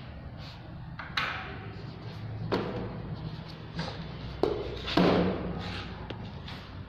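Handling noise from the recording phone as it is moved about: rustling and rubbing against the microphone with several sharp knocks, over a steady low hum.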